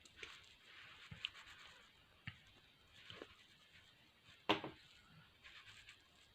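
Faint handling noises from the opened tensioner-pulley bearing: light scattered clicks and rubs of metal parts, with one sharper click about four and a half seconds in.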